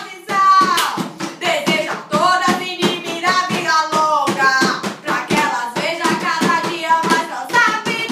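Young voices singing a funk song parody over a beat struck out by hand.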